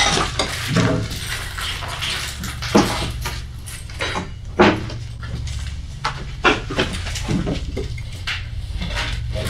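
Irregular wooden knocks, clatter and scraping as a large wooden board frame is handled and carried through a doorway, with footsteps on a debris-strewn floor, over a steady low hum. The loudest knocks come about three and five seconds in.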